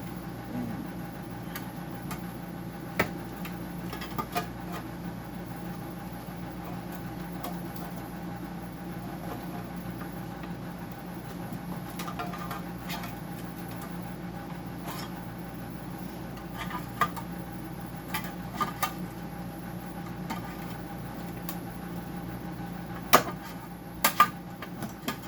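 A screwdriver clicking and knocking against plastic parts and a circuit board as they are pried at, in scattered strokes with a few sharp knocks near the end, over a steady low hum.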